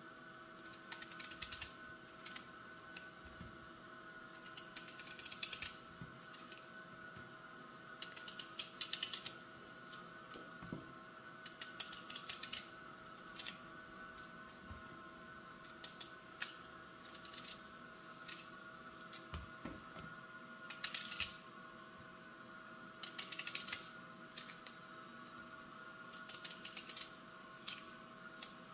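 Small kitchen knife slicing a peeled red onion held in the hand, each cut a quick run of crisp crunching crackles, coming in short bursts every few seconds over a faint steady hum.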